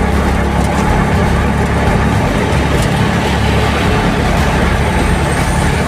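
Auto-rickshaw engine running steadily with road and traffic noise, heard from inside the moving auto.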